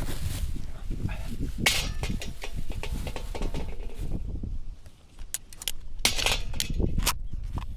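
Strong wind buffeting the microphone in a steady low rumble, with scattered clicks, knocks and clinks over it.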